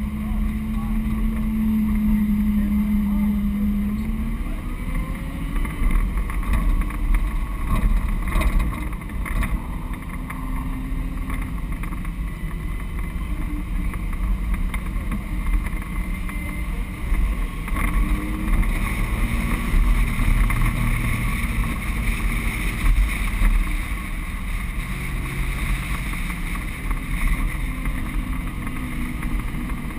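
Car engine driven hard on an autocross run, its pitch rising and falling repeatedly as the driver accelerates and lifts between cones. Wind noise runs underneath.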